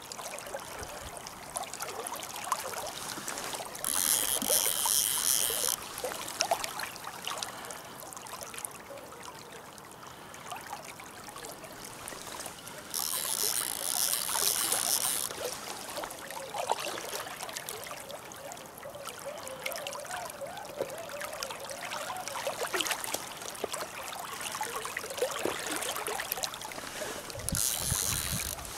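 Steady rush and trickle of river water. Over it come three bursts of about two seconds each of fast, high clicking from a fishing reel while a strong lenok is being played: about four seconds in, about thirteen seconds in, and again near the end.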